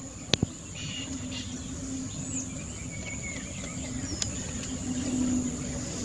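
Wetland field ambience: a steady high insect buzz under a low steady hum, with a few short bird chirps scattered through. Two sharp clicks sound about half a second in.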